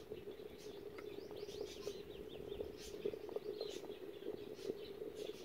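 Beans boiling hard in a clay pot over a wood fire: a steady bubbling with small pops. A bird chirps a quick run of calls in the background about one and a half seconds in.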